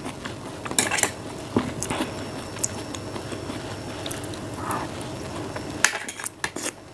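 Close-up eating sounds: a person biting and chewing soft fruit, with wet mouth clicks and short sharp clicks, busiest about a second in and again near the end.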